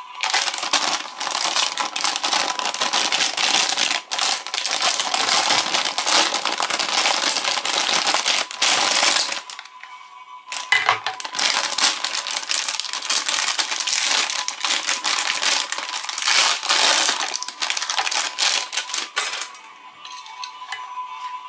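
Clear plastic packaging bag crinkling and rustling loudly as a toy dart blaster is unwrapped from it, in two long stretches of handling with a brief pause between.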